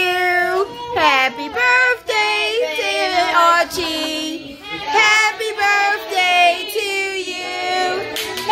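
A high voice singing a melody, with notes gliding between pitches and some held for about a second.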